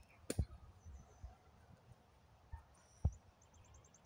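Quiet open-air ambience: a sharp click shortly after the start, a few low dull thumps, and a brief quick run of high chirps near the end.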